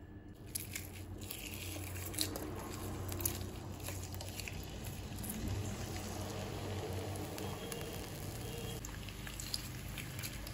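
Sliced red onions frying in hot oil in a nonstick pan: a steady crackling sizzle, with a few sharp clicks as more pieces drop in.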